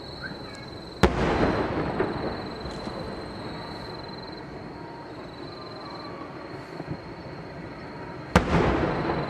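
Aerial fireworks shells bursting at a distance: two sharp bangs about seven seconds apart, each trailing off over a second or so.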